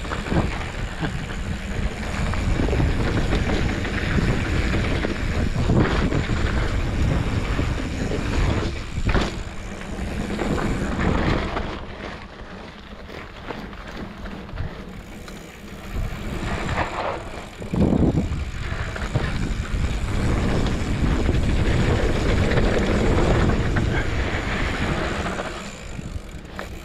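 Mountain bike rolling down a dirt trail: wind buffeting on the camera's microphone and the rumble of knobby tyres on dirt, with knocks and rattles of the bike over bumps. It eases off for a few seconds about halfway through.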